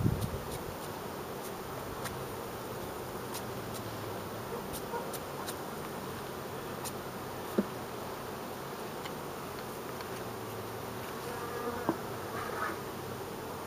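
Carniolan honeybees buzzing in a steady drone around an open hive and a lifted honey frame, with a few short knocks, the loudest right at the start.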